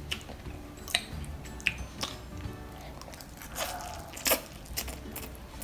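Metal fork clicking against a glass dish while twirling instant noodles, a few sharp clicks, then a loud slurp of a forkful of noodles about four seconds in. Soft background music underneath.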